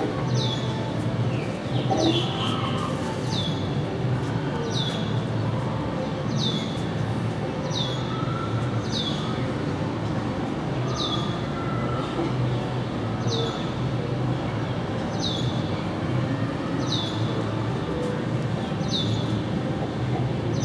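A small bird calls over and over, about once a second. Each call is a sharp, high whistle that drops quickly and then levels off. Under it runs a steady low rumble.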